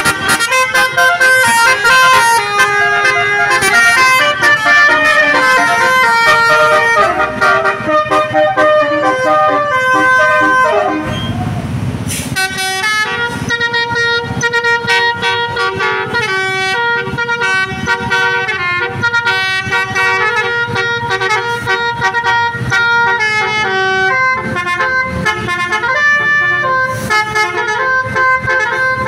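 Buses' multi-tone musical horns playing quick strings of melodic notes over and over, with a short hissing burst about eleven seconds in.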